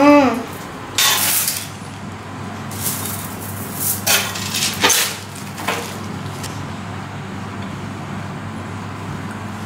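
Food being handled and eaten at a dining table: several short crinkly rustles and a sharp clink in the first six seconds, over a steady low hum.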